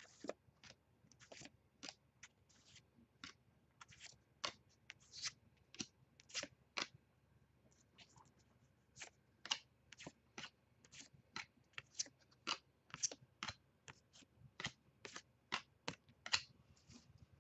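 Stack of baseball trading cards flipped through by hand, each card slid off the pile with a light, sharp papery click, a few a second at an uneven pace.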